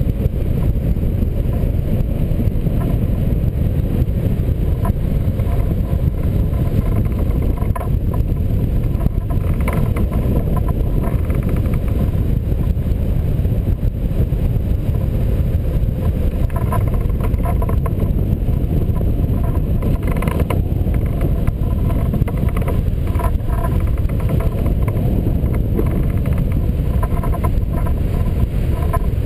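Steady low rush of airflow buffeting the microphone of a camera mounted on a hang glider's wing in flight.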